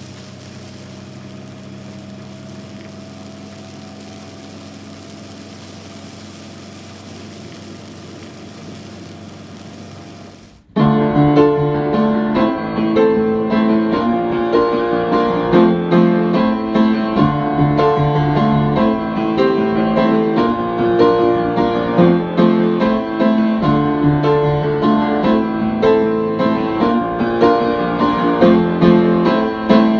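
Steady engine and road drone inside a semi-truck cab, which cuts off about ten seconds in as loud piano music begins and carries on.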